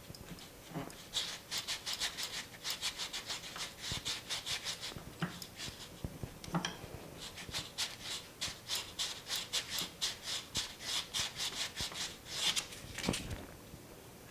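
Quick back-and-forth rasping strokes of a hand-held abrasive on the edge of a 50 NTD coin ring, about four strokes a second, with a short break around the middle; the strokes stop near the end.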